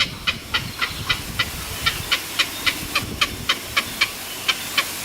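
A bird giving short, evenly repeated calls, about three to four a second, over a steady background hiss.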